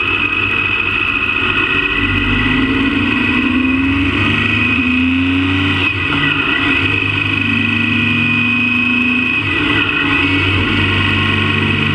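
Motorcycle engine running under way, its pitch climbing as it accelerates from about two seconds in, dropping briefly near six seconds and again near ten, then holding steady. A steady high whine runs over it throughout.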